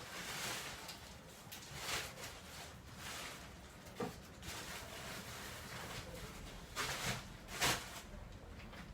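Soft handling noises: a few light knocks and rustles as packs of welding rods (electrodes) are picked up and opened.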